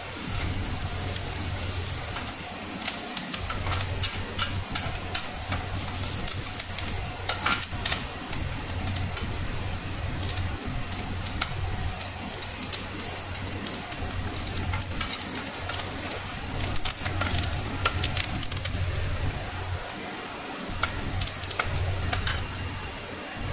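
Sliced onions and curry leaves sizzling in oil in an aluminium kadhai, stirred with a metal slotted spoon that scrapes and clicks against the pan over and over.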